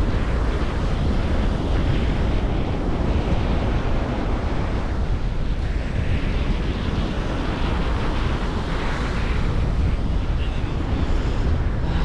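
Atlantic ocean surf washing onto the beach, with wind buffeting the microphone: a steady rush with a heavy low rumble.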